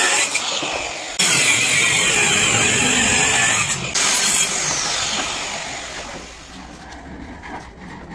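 Electric power tool running loud and hissy. It dips briefly twice, then winds down with a falling pitch and fades over the last few seconds.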